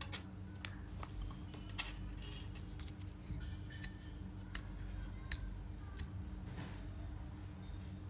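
Scattered sharp clicks and taps as hands handle a plastic fitness-tracker module and its silicone wristband strap, pressing the module into the strap and bending the band. Underneath is a steady low hum.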